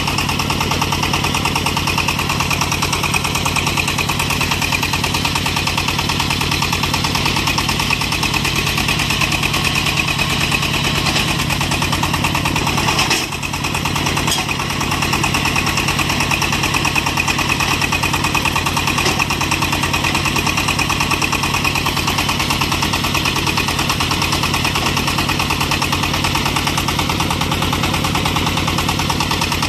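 Engine of a small portable water well drilling rig running steadily under load as it drives the drill, with a rapid, even firing beat. The sound dips briefly about halfway through.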